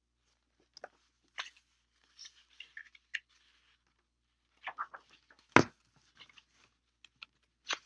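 Paper rustling and light clicks as the pages of a picture book are handled and turned, with one sharp knock about halfway through.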